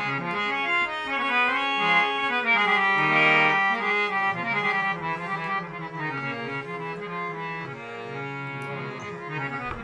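Harmonium playing a stepping melodic introduction, with a low note held steady beneath the tune.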